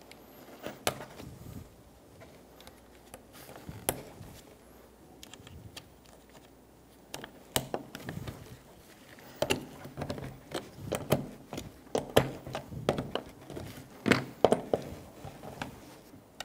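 Scattered clicks and knocks as push-on pressure clips are pressed down onto the plastic posts of a car's interior door handle and seated with a socket. The clicks are sparse at first and come thicker in the second half.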